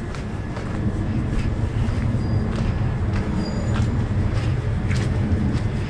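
Steady low rumble with light footsteps on pavement at a walking pace.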